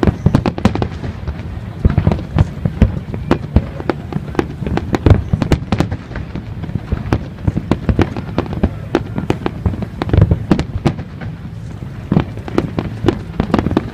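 Fireworks going off: many sharp bangs and crackles in rapid, irregular succession over a continuous low rumble.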